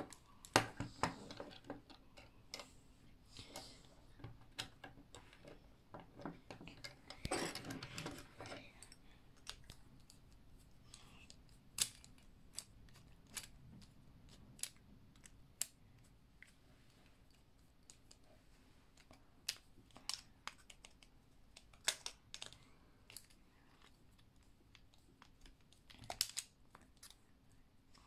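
Meccano Junior plastic beams, bolts and nuts clicking and clacking as they are handled and screwed together by hand: scattered sharp clicks, with a longer rattle of parts about seven seconds in.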